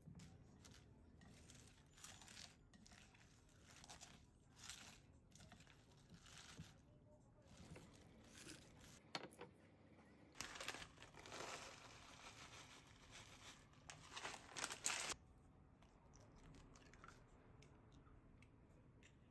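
Handfuls of shredded raw cabbage dropped into a glass bowl, rustling crisply in short separate bursts. About halfway through comes a denser stretch of crinkling and tearing lasting a few seconds, sharpest near its end, then it goes quiet.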